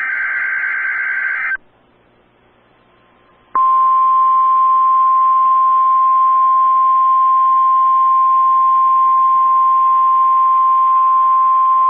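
NOAA Weather Radio signalling: a short burst of SAME digital header tones, a pause of about two seconds, then the 1050 Hz warning alarm tone coming on about three and a half seconds in and holding one steady pitch. The alarm is being sounded as a routine test of the receivers' warning alarm feature.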